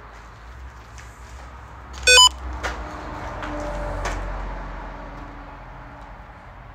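A single short, loud electronic beep about two seconds in, followed by a few faint clicks over a low rumble.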